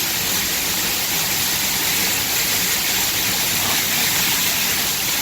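Waterfall pouring, a steady loud rush of water.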